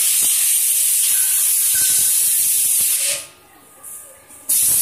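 Compressed-air blow gun hissing in a long blast over an open rubber compression mold. It cuts off sharply about three seconds in and starts again near the end.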